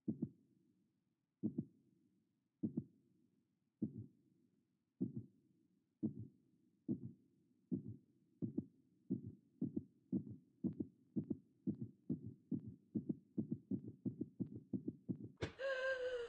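Heartbeat sound effect: single low thumps that start slow, about one every second and a half, and speed up steadily to about four a second. Near the end a loud pitched sound cuts in.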